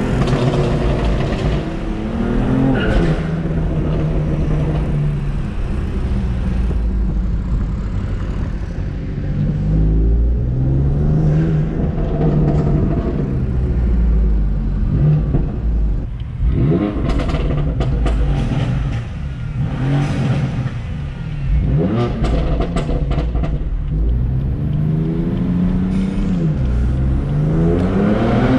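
Tuned BMW F80 M3's twin-turbo straight-six and exhaust under repeated hard acceleration, the revs climbing and dropping again and again through gear changes. A cluster of sharp cracks comes through about two-thirds of the way in.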